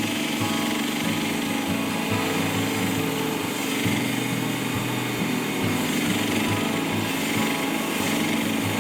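Norwood LM30 portable bandsaw mill running steadily, its gas engine under load as the blade cuts through a very large log. The mill's track is bent out of line, so the head is hard to push through the cut.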